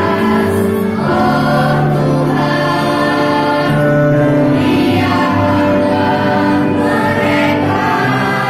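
Children's choir singing a song in long held notes over instrumental accompaniment.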